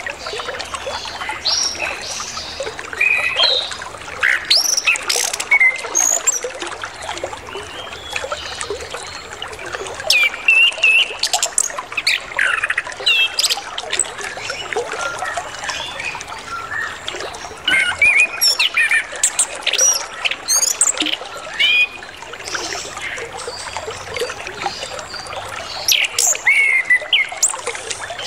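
Chestnut-capped thrush (anis kembang) singing a varied song of quick whistles and chirps, full of borrowed phrases, over water trickling steadily.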